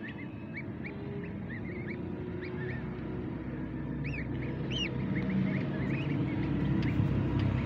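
Newly hatched ducklings peeping: many short, high cheeps in quick runs, a few louder ones about halfway through. A low rumble grows steadily louder underneath in the second half.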